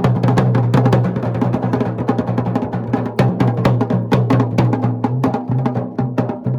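Dhol and damau drums playing together in a fast, dense rhythm of rapid strokes, over a steady low droning tone.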